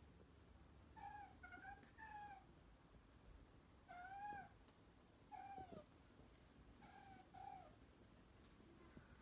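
A cat's short, high-pitched meows, about seven in all, coming singly and in twos and threes, each rising then falling in pitch: calls inviting another cat to play.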